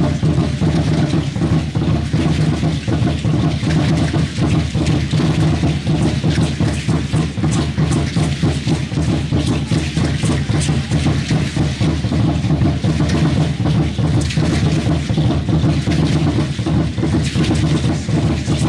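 Danza azteca music: steady, fast drumming kept up without a break, mixed with the shaking of the dancers' ankle rattles.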